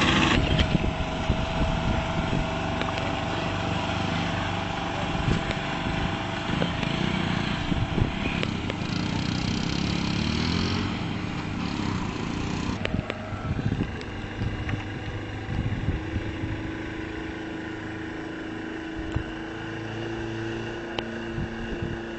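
Engine of a small passenger ferry running steadily as it pulls away from the landing, growing fainter about halfway through.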